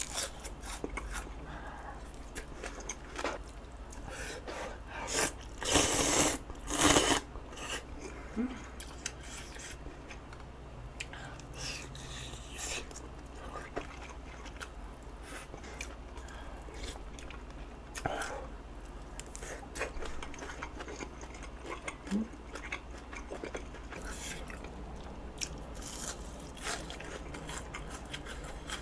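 Close-up eating sounds: a person chewing and biting food, with small crunches and clicks, and a few louder bursts about five to seven seconds in.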